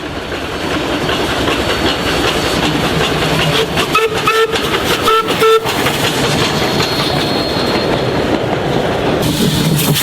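Steam train running past, its wheels clattering on the rails, growing louder over the first couple of seconds. Two short whistle toots sound about four and five seconds in.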